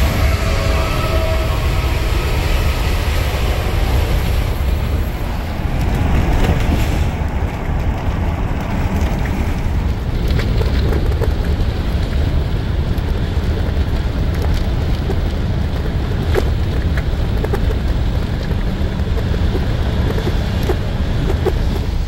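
Steady road and engine rumble heard inside a motorhome's cab while it drives at highway speed.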